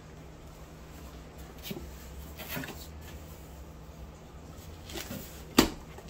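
Hands handling a cardboard shipping box: a few soft taps and rustles, then one sharp slap on the box about five and a half seconds in.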